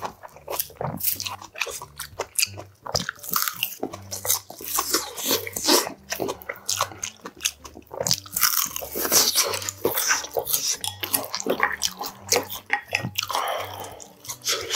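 Close-miked eating sounds: a man chewing and crunching mouthfuls of rice, seasoned laver and kimchi stew, with many short crisp clicks coming in quick, irregular succession.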